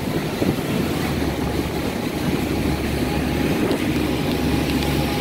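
Tour boat's engine running steadily as it cruises, with a low hum under the noise of wind and water.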